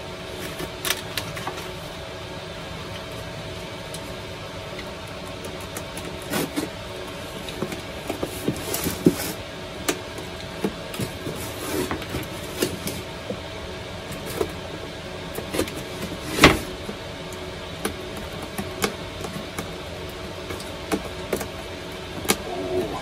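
Cardboard box being handled and opened on a wooden bench: scattered taps, knocks and scrapes of cardboard, with one louder knock about two-thirds of the way through. A steady faint hum runs underneath.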